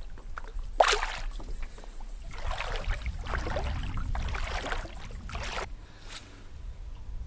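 Water splashing and sloshing close beside a boat, with a sharp splash about a second in and a longer spell of sloshing in the middle.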